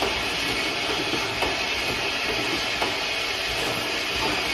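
Automatic lighter-fluid filling and capping line running: a steady mechanical hiss with a sharp click about every second and a half.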